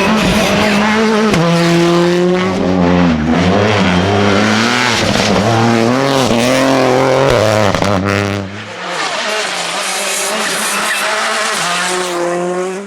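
Rally car engine revving hard, rising and falling in pitch as it shifts through the gears, with some tyre squeal. About two-thirds of the way in it gives way to a quieter, more distant car.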